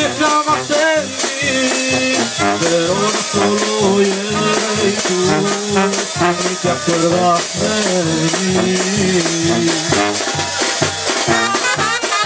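A live tamborazo banda playing: brass instruments, including tuba, carry the tune over a steady, even drum beat.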